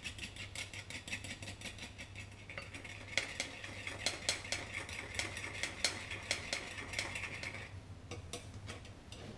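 Metal fork scraping and clicking against a small bowl in quick, light strokes, busiest through the middle, over a steady low hum.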